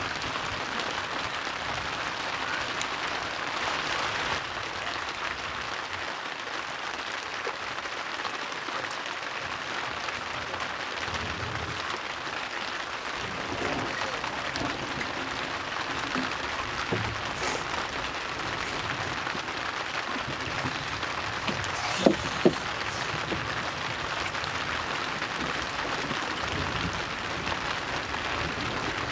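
A steady, even hiss throughout, with two sharp clicks close together about 22 seconds in.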